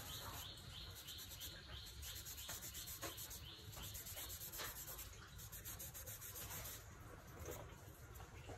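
Charcoal scratching and rubbing on drawing paper in quick, short repeated strokes as an area of a drawing is shaded.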